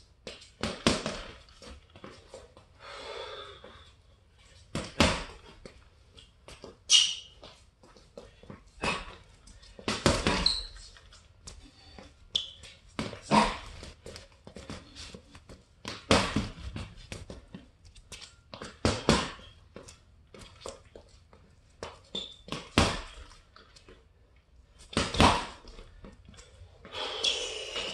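Boxing gloves punching a heavy bag in quick combinations of two or three sharp hits, one burst every two to three seconds.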